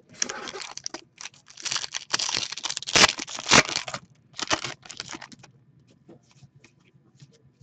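Hockey card pack wrappers being torn open and crinkled, in several noisy bursts over the first five seconds or so, loudest about three seconds in, then a few light clicks near the end.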